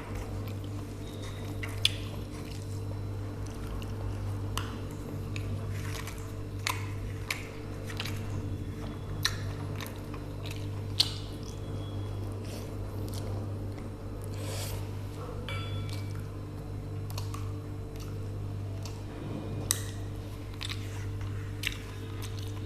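Close-miked chewing and smacking of someone eating a rice-and-curry meal, with scattered sharp clicks, over a steady low hum.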